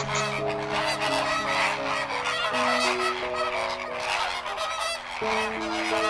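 A flock of flamingos calling, many short calls overlapping in a continuous chatter, over background music of slow sustained notes.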